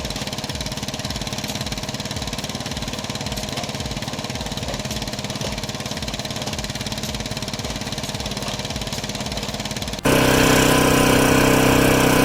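An engine-driven machine running steadily with an even, rhythmic low pulsing. About ten seconds in it cuts abruptly to a louder machine sound with several steady tones.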